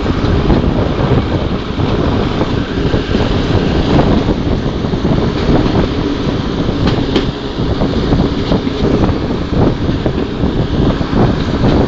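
Class 122 'Bubblecar' single-car diesel railcar under way, heard from an open window on board: its engine pulling under power and the wheels running on the rails, with wind buffeting the microphone and a few brief clicks from the track.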